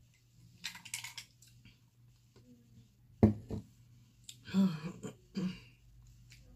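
A short hissing suck of water through a drinking straw about a second in. Then comes a sharp knock, the loudest sound, a little past three seconds, and after it two short throaty vocal sounds, like a throat being cleared.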